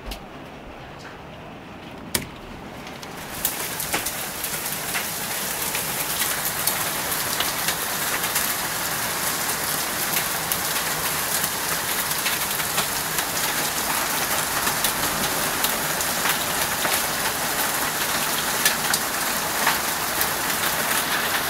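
Hail and heavy rain pelting down. The downpour comes on suddenly about three seconds in, builds over the next few seconds and then holds as a dense hiss, with many sharp clicks of hailstones striking hard surfaces.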